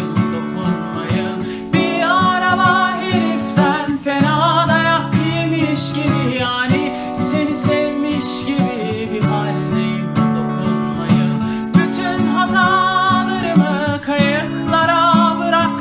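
Music: a song with acoustic guitar under a wavering melody line, with no lyrics sung.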